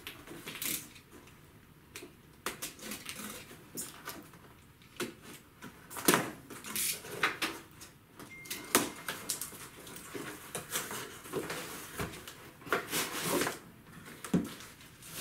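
Cardboard laptop box being handled and unpacked on a glass-topped table: irregular scraping and rustling with scattered knocks and taps as the box is moved, set down and opened.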